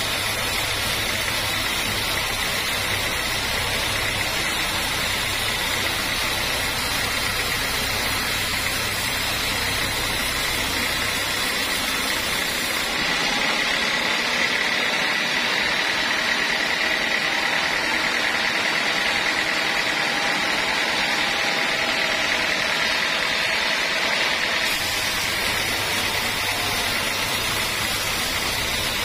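Horizontal band sawmill running, its blade cutting lengthwise through a log: a steady mechanical noise with a high whine over it. For about ten seconds in the middle the low rumble drops out and the whine comes forward.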